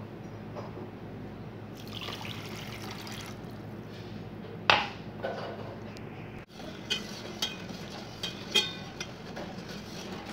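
Water poured onto sugar in a steel bowl, then a sharp knock on metal. After that, a metal spoon clinks against a steel pot several times as sugar and water are stirred together.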